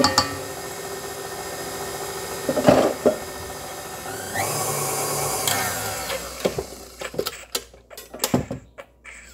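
Electric kitchen mixer running steadily, its pitch rising about four and a half seconds in, then dying away after about six seconds into a few clicks and knocks.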